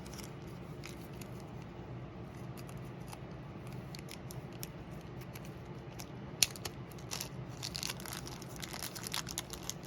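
Small plastic parts bag being opened and picked through: crinkling and small crackles, with a sharp click about six and a half seconds in and busier handling near the end.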